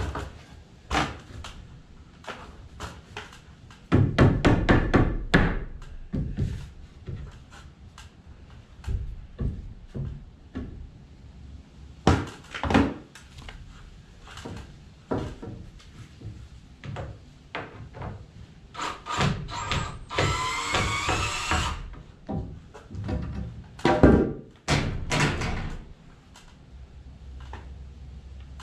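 Irregular knocks and thuds of work on wooden wall framing, with a dense clatter about four seconds in and a sharp knock near the end. A DeWalt cordless drill runs for about two seconds a little over two-thirds of the way through, its whine climbing slightly.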